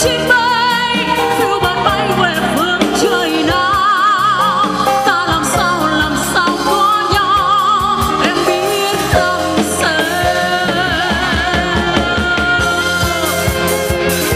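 A woman singing a slow ballad with wide vibrato into a microphone, backed by a live band of keyboards, drums and guitars. Her voice drops out near the end while the band plays on.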